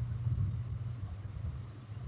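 A steady low hum or rumble, with nothing higher-pitched over it.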